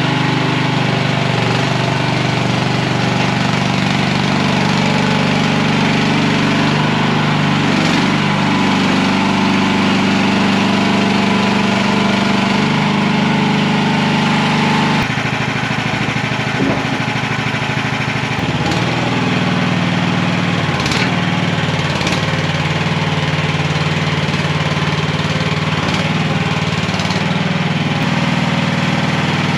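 Small engine of a mini skid steer running steadily, its note shifting a few times as the machine works. A few sharp clanks are heard over it.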